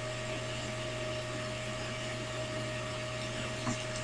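Steady mechanical hum with a constant low drone and a faint steady tone above it, like a small fan or motor running, with a faint click near the end.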